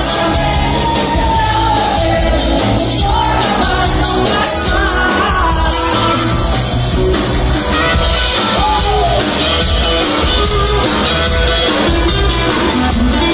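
A band playing music with a steady beat and a gliding melody line.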